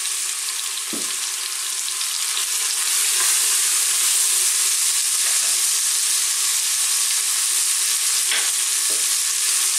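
Chopped onion sizzling in hot oil with garlic, ginger and whole spices in the base of a stainless steel pressure cooker, stirred with a wooden spoon. The sizzle grows louder about three seconds in, with a few faint knocks.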